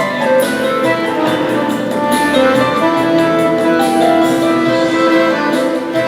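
Instrumental music: a melody of held notes over a chordal accompaniment, played at a steady level.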